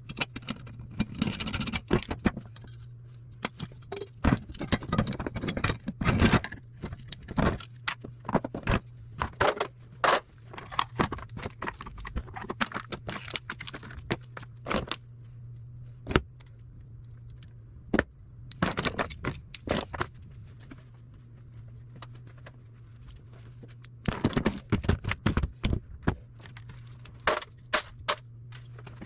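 Hand tools and small metal parts clinking, scraping and rattling as food service scales are taken apart for scrap, in irregular bursts with a quieter stretch in the middle, over a steady low hum.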